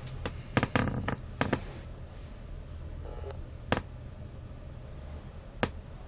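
Sharp clicks and taps of something small being handled: a quick cluster of about six in the first second and a half, then single clicks about two seconds apart, over a low steady hum.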